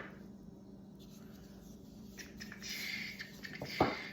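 Packaging rustling and scraping as a new table saw insert is unwrapped, followed by one sharp knock near the end.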